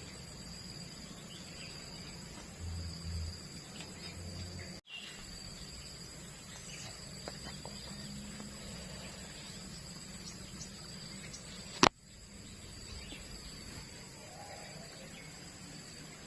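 Steady outdoor insect chorus, crickets chirring in a continuous high drone, with a low rumble a few seconds in and one sharp loud click about three-quarters of the way through.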